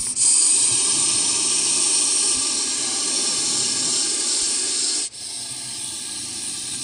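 Russell's viper hissing: a long, loud hiss that drops to a softer hiss about five seconds in.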